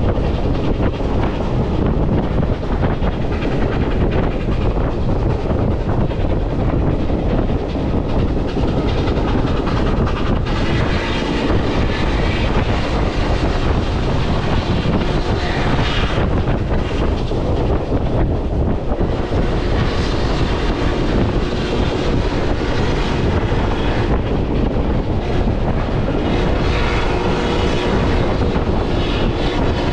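Passenger train running along the track: a steady rumble of the rail cars in motion.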